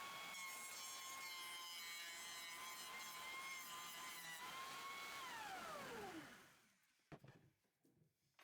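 Jointer running with a steady whine, then switched off: the pitch falls and fades out as the cutterhead spins down, about five seconds in. A few light clicks from handling follow near the end.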